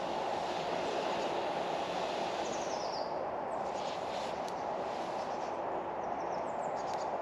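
Steady rushing background noise with a few faint bird chirps.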